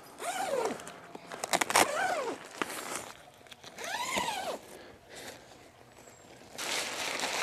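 Front door zip of a Slumit Gobi 3 tent being undone in three pulls about two seconds apart, each rising then falling in pitch, followed by a rustle near the end.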